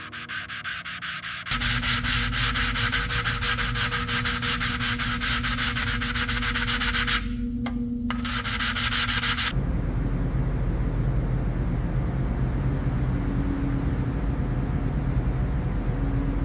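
Power sanding of a surface: a dense, rapid scratching that about nine seconds in turns to a duller, lower sanding noise with a steady hum beneath it.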